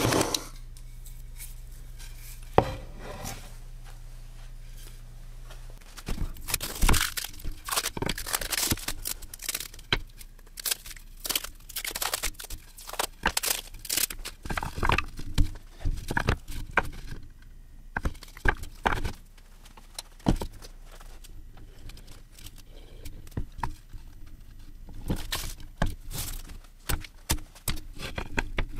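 A paper template being peeled off plywood parts, a run of irregular tearing and crinkling. A low steady hum runs under the first six seconds or so, then stops.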